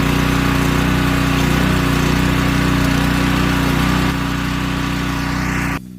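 Gas-engine pressure washer running steadily. The level drops slightly about four seconds in, and the sound cuts off abruptly just before the end.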